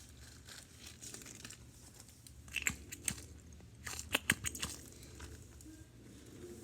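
Homemade balloon stress balls being handled and squeezed: faint crinkling and scattered soft clicks, in two small clusters around three and four and a half seconds in.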